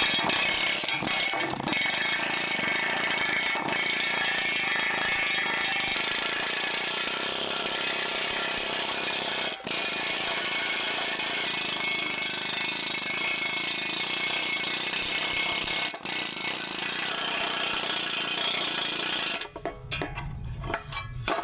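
Pneumatic air hammer fitted with a needle-scaler attachment, its bundle of steel needles hammering rust and scale off a rusted drum-brake backing plate. It runs steadily with two very brief breaks, then stops near the end.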